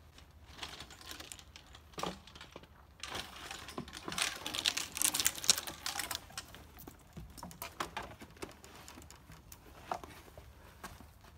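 Golf clubs rattling and clinking against each other in a golf bag worn on the back as it swings, a quick run of clicks and knocks that is thickest about four to six seconds in and thins out after.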